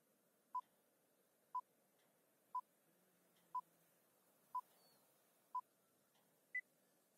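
Countdown-leader beeps: six short identical beeps, one each second, then a seventh beep at a higher pitch, with faint hiss between them.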